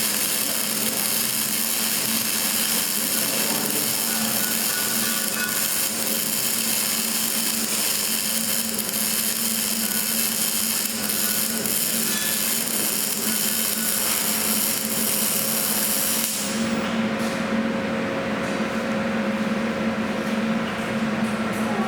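Arc welding: a steady hiss with fine crackling that stops about sixteen seconds in, over a steady low machine hum that carries on after it.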